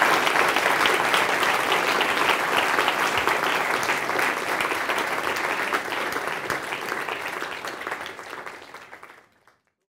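Audience applauding, a dense patter of many hands clapping that tapers off over the last few seconds and stops just before the end.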